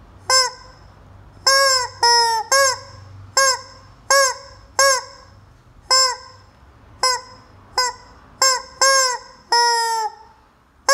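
Yellow rubber screaming chicken toy squeezed by hand over and over: about a dozen short honking squawks at an uneven pace, each dropping in pitch as it ends, one near the end held longer.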